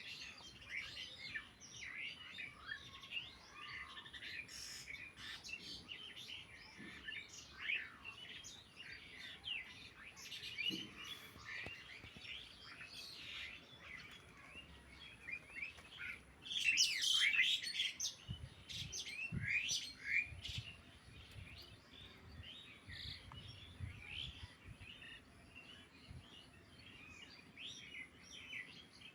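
Small birds chirping and twittering continually in quick, overlapping short notes, with a louder, noisier flurry a little past halfway through.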